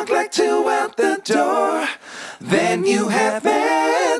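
Background music with a sung vocal in short phrases and little accompaniment.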